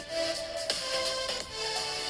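Background music with a melody of held notes.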